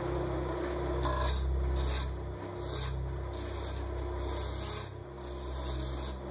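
Bowl gouge cutting a spinning segmented aspen workpiece on a wood lathe: a rough scraping, shaving sound that swells with each pass of the tool, over the lathe's steady low hum.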